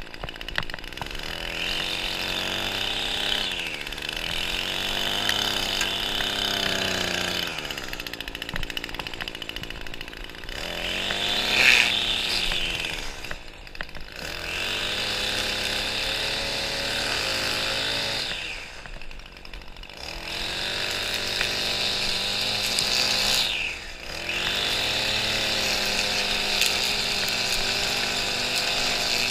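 Echo two-stroke string trimmer running at high throttle, easing off and revving back up about six times.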